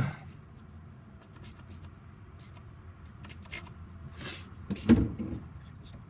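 Hands handling parts and tools while working on the engine's ignition: scattered light clicks and rattles, a brief rustle about four seconds in, and a louder knock about five seconds in.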